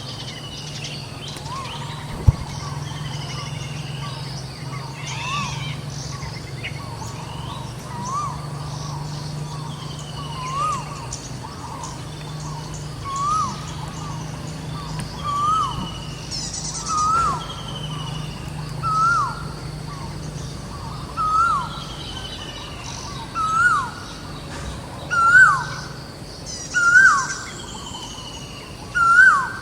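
A short call that rises and then drops sharply, repeated about every two seconds and growing louder. Fainter falling bird whistles sound behind it, over a low steady hum that stops near the end.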